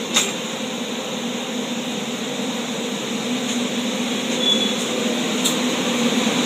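Spanish regional passenger train at the platform pulling slowly away, a steady hum of its running gear and equipment that grows gradually louder. There is one sharp click just after the start.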